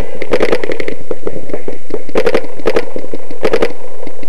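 Paintball markers firing in rapid bursts of shots, about ten a second, with short gaps between the bursts.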